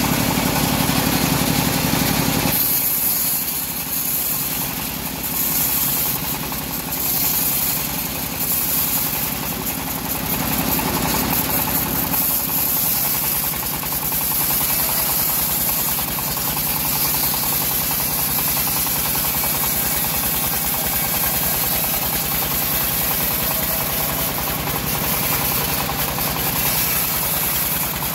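Engine-driven homemade bandsaw mill running steadily while its band blade cuts through a teak log. The sound changes about two and a half seconds in, after which a high hiss rides over the engine.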